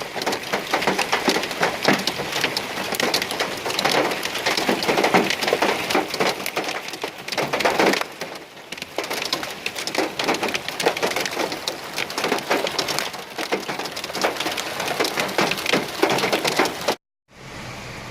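Heavy rain mixed with hail pelting hard surfaces, a dense patter of sharp impacts, easing for a moment about halfway through. It cuts off abruptly a second before the end, giving way to a quieter, different noise.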